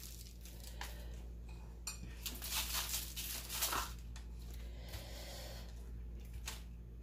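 Quiet kitchen handling sounds: skewered peppers and onions being picked up and turned over on parchment paper, with soft paper rustles and light clicks.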